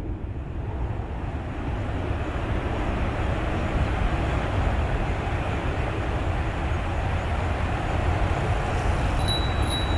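Jet airliner engines heard across an airport: a steady low rumble and roar that slowly grows louder.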